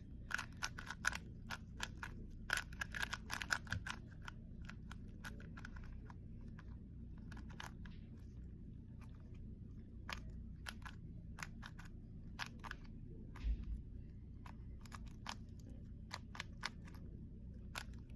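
A 3x3 speedcube, an Angstrom-lubed MoYu WeiLong GTS3 M, being turned quickly by hand: a rapid, irregular run of light plastic clicks as its layers snap round.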